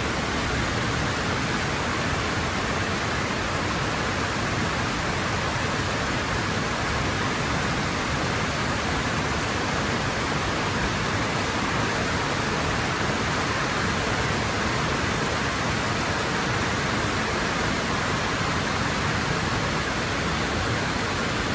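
Steady rush of heavy rain and fast-running runoff water, an even hiss that holds without change.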